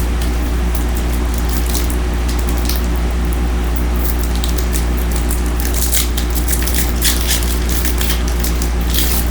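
Trading cards and foil pack wrappers being handled, with short crinkling, rustling sounds that come thicker in the second half. Under them runs a loud, steady low hum.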